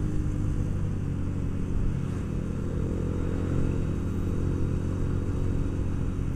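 Motorcycle engine running steadily at cruising speed while the bike is ridden, with a steady hum that holds its pitch.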